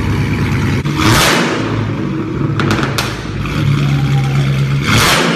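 Dodge Challenger SRT Hellcat's supercharged 6.2-litre Hemi V8 running loudly through its exhaust, blipped sharply about a second in and again near the end, with a few short cracks in between.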